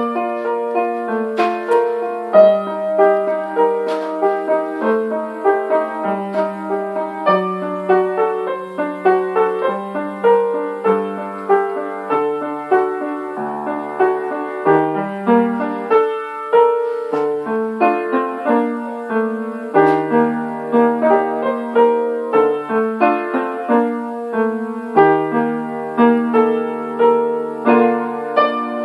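Upright piano played solo: a melody and chords over a low bass line, notes struck in a steady even rhythm.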